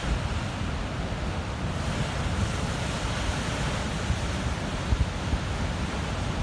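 Pacific surf breaking against a rocky shore, a steady rushing wash, with wind buffeting the microphone in low gusts.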